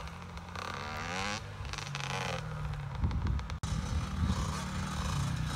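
Dirt bike engine running and revving, its pitch rising and falling as the throttle opens and closes, with a momentary dropout about halfway through.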